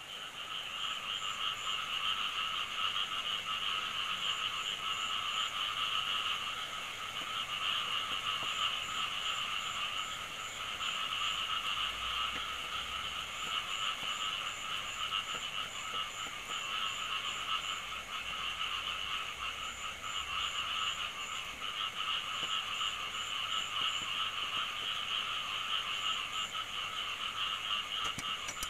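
A steady chorus of frogs calling, dense and continuous, with a higher, rapidly pulsed call that comes and goes in short runs.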